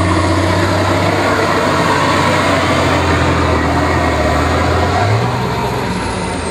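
Off-road trial truck's diesel engine running flat out under full load on a steep dirt climb, a loud deep steady drone. Its pitch steps up slightly about five seconds in, then eases near the end, while a faint high whistle rises and later falls away.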